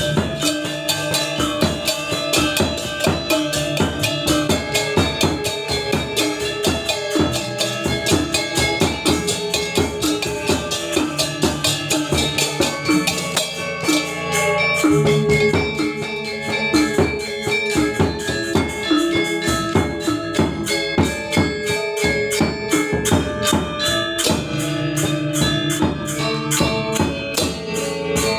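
Balinese gamelan gong ensemble rehearsing: bronze metallophones and gongs struck in a dense stream of rapid notes over drums, with sustained ringing tones underneath.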